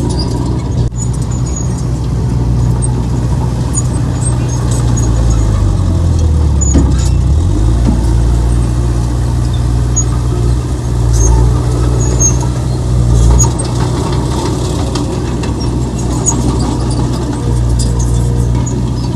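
Heavy diesel engine of earthmoving machinery running steadily under load. About six seconds in, its pitch sags for a couple of seconds as it lugs, then recovers. Scattered small metallic clinks and squeaks run through it.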